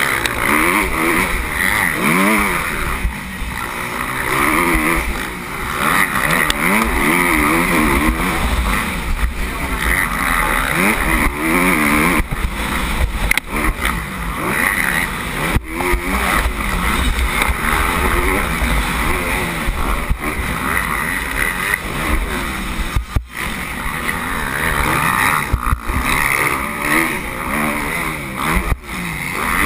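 Motocross bike engine heard from a helmet-mounted camera, its pitch rising and falling again and again as the rider opens and shuts the throttle round the track.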